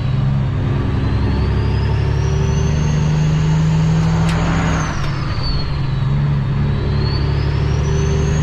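Cummins ISX diesel of a 2008 Kenworth W900L heard inside the cab, pulling hard as the truck accelerates toward highway speed. A high whistle climbs and holds with engine speed, then falls with a brief dip in the engine drone about five seconds in, where the driver shifts up, and climbs again as it pulls in the next gear.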